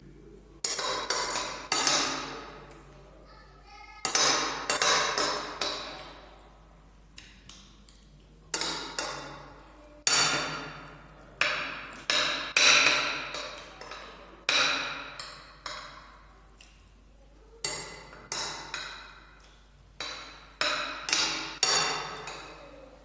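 Metal spoon clinking and scraping against a plate as rice is scooped up, in clusters of sharp strikes every couple of seconds.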